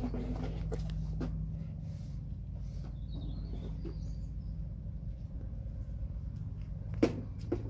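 A few faint bird chirps over a low, steady rumble, with a sharp click about a second before the end.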